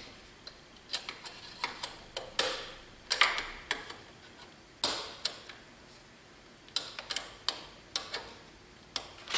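Irregular clicks, taps and short scrapes of an intercooler hose clip and its fitting being worked by hand as the mechanic tries to pop the clip up. The clip does not release, being locked in. A few louder clicks come about two and a half, three and five seconds in.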